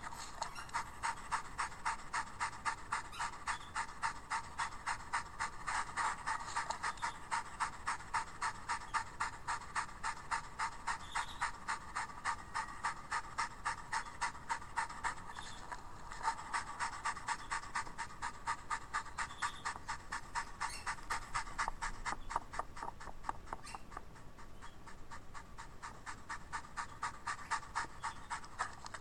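A dog panting fast and rhythmically, played from a YouTube video through small computer speakers, so it has almost no low end. The panting stops briefly about halfway, then goes on.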